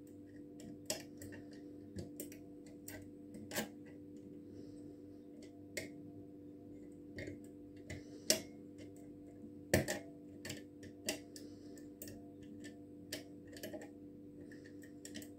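Faint, irregular metallic clicks and ticks of a hook pick working through the levers of a lever-type mortise lock, held under light turning pressure from a tension wrench, as each lever is lifted and set during picking.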